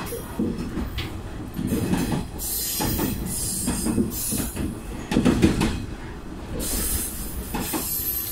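Diesel railcar on the move, heard from inside the carriage: engine running under the rumble of wheels on the rails, with irregular knocks and clatters from the running gear.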